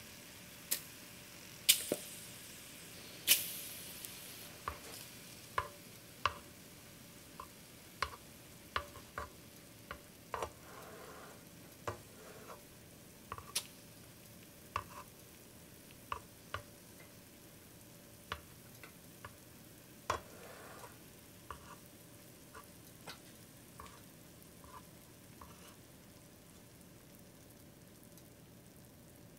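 Bacon-wrapped enoki mushrooms frying on a round grill plate: a faint sizzle broken by irregular sharp pops and crackles of spattering fat, about one a second, the loudest two about 2 and 3 seconds in.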